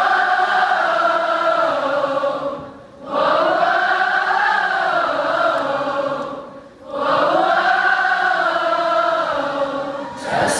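Concert crowd singing in unison with little or no band behind it: three long held notes, each rising and then falling back in pitch, with short breaks between them.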